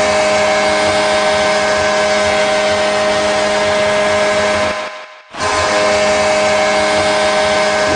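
Pittsburgh Penguins arena goal horn sounding a loud, steady, low blast with no crowd. It cuts out briefly about five seconds in, then starts a second blast.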